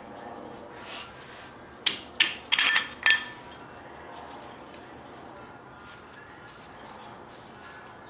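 A metal wheel spacer clinking against the wheel studs and rotor hub as it is worked off: a quick cluster of four or five sharp clinks about two to three seconds in.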